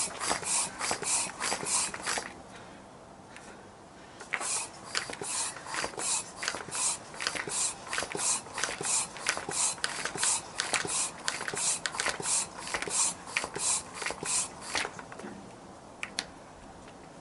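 Floor pump inflating a bicycle inner tube, a hiss of air with each stroke at about two strokes a second. The pumping pauses about two seconds in, resumes, and stops near the end, followed by a single click. The tyre is not beaded on the rim, so the tube is being pumped up unsupported.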